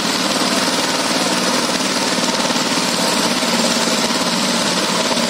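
Single-cylinder diesel engines of two-wheel power tillers running steadily under heavy load, with a fast, even chugging, as they pull a fully loaded trolley that is stuck in mud.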